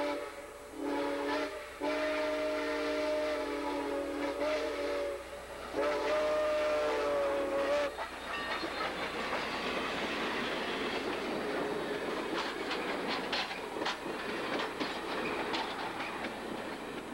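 Southern Pacific 786, a 2-8-2 Mikado steam locomotive, blowing its chime steam whistle as it approaches a grade crossing: a short blast, then two long ones, the last rising slightly in pitch just before it stops about eight seconds in. Then the locomotive and its passenger coaches pass close by with a broad running noise and wheels clicking over rail joints.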